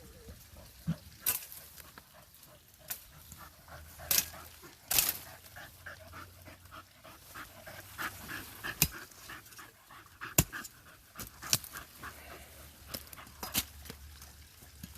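Dogs panting as they dig in dry brush and roots, with scattered sharp clicks and snaps, the loudest sounds, a few seconds apart.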